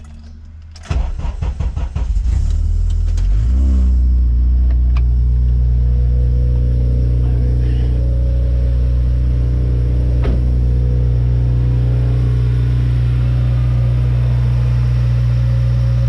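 Honda Civic Si four-cylinder engine cranked over by the starter for about two seconds, catching about three seconds in with a brief rise in revs, then settling into a steady idle. This is its first start in a couple of months, with the fuel primed beforehand.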